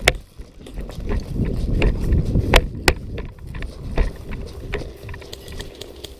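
Rustling and low thumping of a hand-held camera on the move, with footsteps and scattered sharp clicks, two of them louder about two and a half seconds in.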